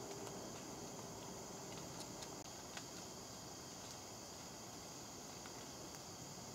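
A steady chorus of field insects, crickets among them, chirring without a break, with a few faint clicks.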